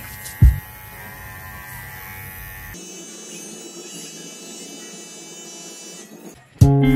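Cordless pet hair clipper running with a steady electric buzz as it trims a dog's fur around the face and paws.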